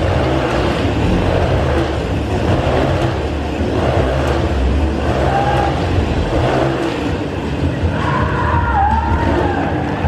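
Motor vehicle engines running loudly and steadily, with squealing tones gliding up and down in the last two seconds.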